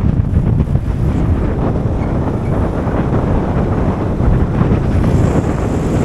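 Wind buffeting the microphone: a loud, unsteady low rumble.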